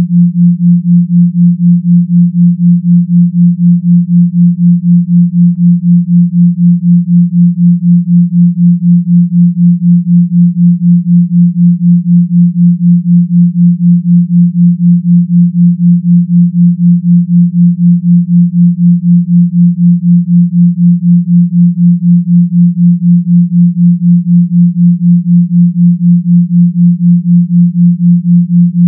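Pure sine tones near 174 Hz, 172 Hz in the left channel and 176 Hz in the right, forming a 4 Hz theta binaural beat. Heard together they make one low steady hum that swells and fades about four times a second.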